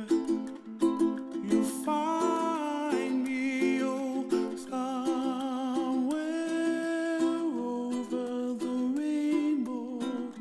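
Background music: a strummed ukulele under a voice singing long, wavering held notes without clear words.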